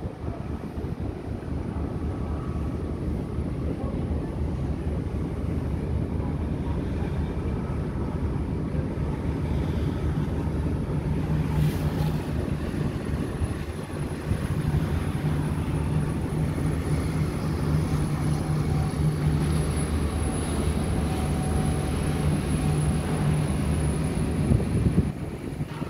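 Star Ferry's engine droning steadily under the rush of wind and water past the open deck; its low hum grows stronger about halfway through.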